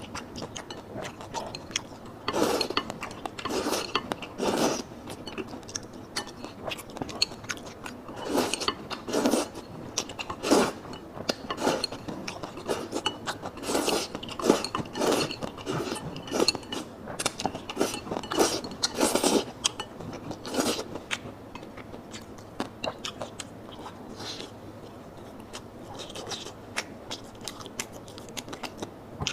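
Close-miked eating: chopsticks scraping and clinking against a bowl, with chewing of lard-tossed rice noodles, in irregular bursts that thin out over the last several seconds.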